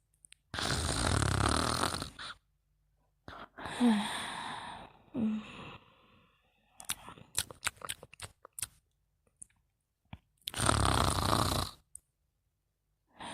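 A sleeper snoring loudly: two long snores about nine seconds apart, with shorter breathy sounds and a run of small clicks between them.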